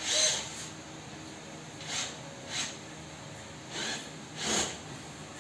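Cordless drill/driver run in about five short bursts, driving a screw into a ceiling mount.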